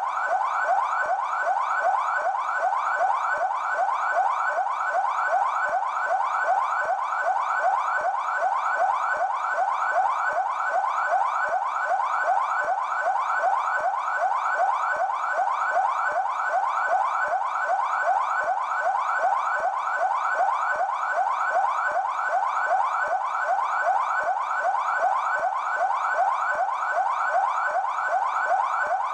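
São Paulo Military Police (PMESP) siren sounding its yelp tone: a fast, evenly repeating rising sweep in pitch, steady and unbroken.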